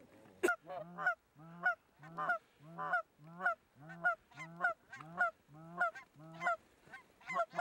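Goose honks, a two-note honk breaking from low to high, repeated steadily about every 0.6 seconds and quickening into rapid clucks near the end. A single sharp crack sounds about half a second in.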